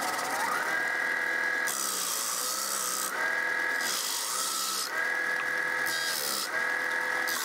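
775 DC motor spinning a sanding disc, its whine climbing to speed at the start. Wood is pressed against the disc about four times: a rasping sanding noise each time, with the motor whine dropping in pitch under the load and rising again between passes.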